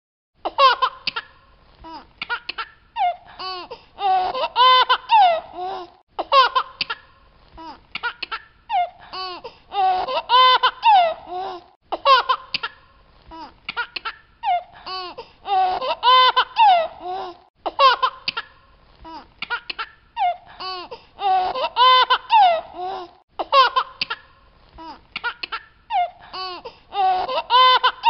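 A baby laughing happily in bursts of high-pitched giggles and belly laughs. The same stretch of laughter repeats about five times, every five to six seconds.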